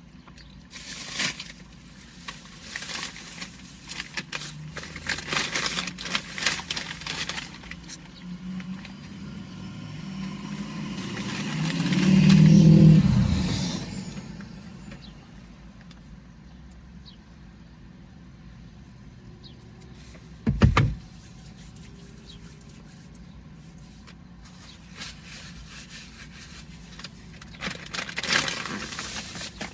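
A vehicle passes close by, swelling to a peak and fading away over a few seconds. Rustling and handling noises come before it, a single loud thump follows later, and more rustling comes near the end.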